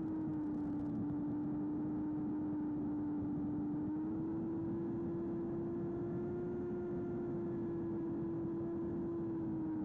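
Electric motor and propeller of a Baby AR Wing Pro flying wing running at cruise throttle, a steady hum over a constant hiss. Its pitch rises slightly about four seconds in and drops back near the end.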